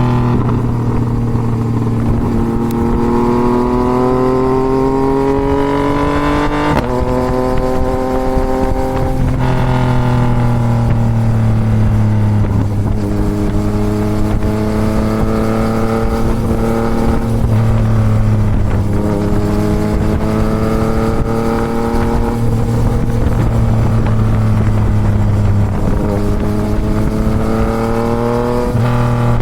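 Yamaha MT-09's three-cylinder engine through a Toce full exhaust, pulling through the revs with repeated gear changes: the pitch climbs steadily, then drops sharply at each shift, about eight times. Wind rush on the microphone sits underneath.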